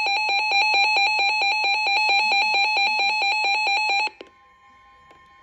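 Weather radio receiver's alert alarm sounding for a severe thunderstorm warning: a loud electronic beep pulsing about ten times a second. It cuts off abruptly about four seconds in, leaving a faint steady tone.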